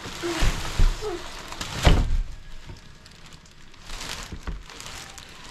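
Large cardboard generator box scraping and thudding as it is tipped and pulled out of its outer shipping carton, with a few knocks in the first second and one heavy thud about two seconds in, then more scraping near the end.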